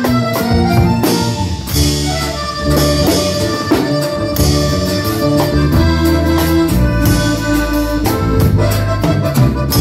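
Accordion-led band music with a bass line and a steady drum beat.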